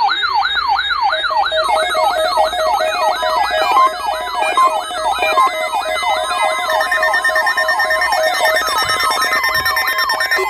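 Electronic alert tones sounding together: a siren-like tone sweeping down in pitch two to three times a second, layered with quick beeping notes at several pitches, with a steady tone joining in the second half.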